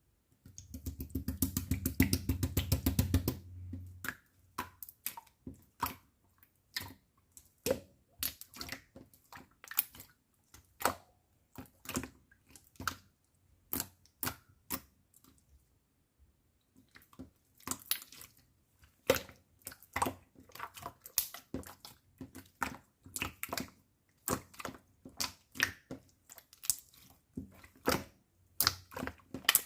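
Strawberry-milk slime squished and pressed by hand, making wet clicking pops as air pockets break. A dense, fast run of clicks fills the first few seconds, then the pops come singly and in small clusters, with a short pause about halfway through.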